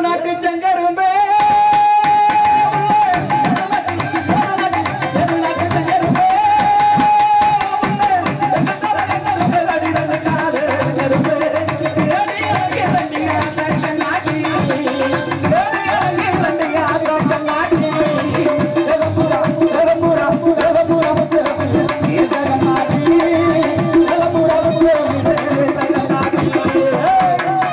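Lively folk dance music: a fast hand-drum rhythm under a melody of long held, bending notes.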